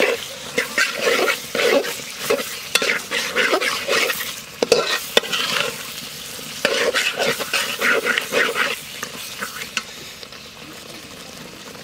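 Metal spatula stirring and scraping chicken bones in thick, sizzling spice masala in a metal pot, as the mixture is sautéed down. The stirring strokes come in quick runs with a pause about five seconds in and a couple of sharp clicks of metal on the pot. They stop about nine seconds in, leaving a quieter sizzle.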